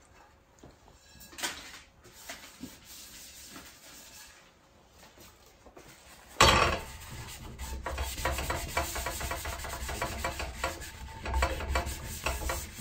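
Paper towel rubbed hard across the non-stick surface of a KitchenAid tri-ply frypan, scrubbing off burnt caramel residue. Faint, light rubbing at first; about six seconds in, the scrubbing starts abruptly louder and goes on as a fast, scratchy rasp of many quick strokes.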